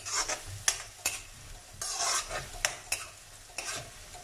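Metal spatula stirring and scraping chopped onions frying in oil in an iron kadhai: irregular scrapes against the pan over a light sizzle. The onions are being fried with spices for a chhole masala base.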